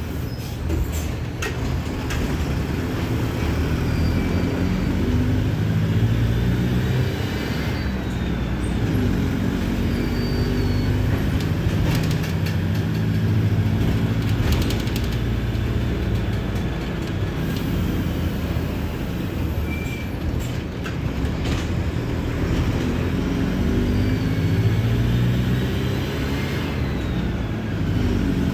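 Mercedes-Benz OF-1721 BlueTec 5 bus diesel engine running on the move, its pitch rising and falling several times, with a faint rising whine above it.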